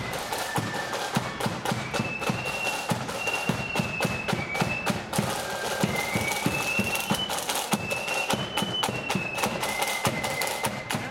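Marching flute band playing a tune: high flutes carry a shifting melody over a steady, busy beat of drums.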